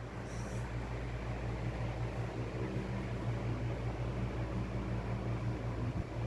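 A steady low mechanical hum with an even hiss over it, like a fan or air-conditioning unit running.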